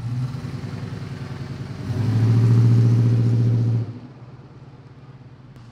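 The AMC 360 V8 (5.9 L) of a 1987 Jeep J10 running at a steady rumble, then accelerating hard for about two seconds as the truck pulls away. Near the four-second mark it drops off sharply and carries on more quietly as the truck moves off.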